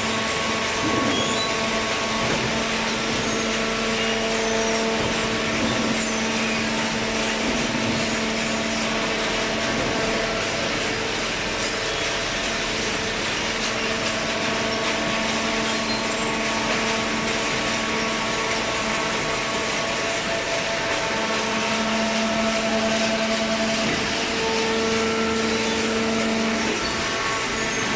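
Hydraulic cardboard baler running: a steady machine hum with a held whine from its hydraulic pump and motor, swelling and easing slightly as it works.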